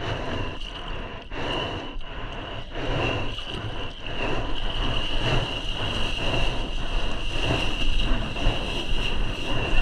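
Seawater splashing and rushing around a bodyboard and a camera close to the surface as the rider paddles, with regular paddle strokes about every two-thirds of a second in the first few seconds.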